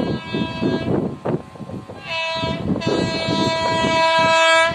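Indian Railways locomotive horn sounding three blasts: a short one at the start, another short one about two seconds in, then a long one held to the end and loudest, with a lower second note joining near its end. A low rumble runs underneath.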